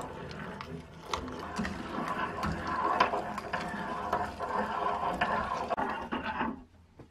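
Hand-cranked Universal No. 1 food chopper grinding zucchini: the cutter crushes the vegetable as the crank turns, with scattered clicks from the mechanism. It stops abruptly near the end.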